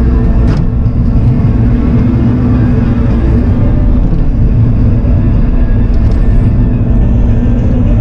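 Bobcat E42 mini excavator's diesel engine running steadily, heard from inside the cab, while the boom and bucket are worked. A single click about half a second in.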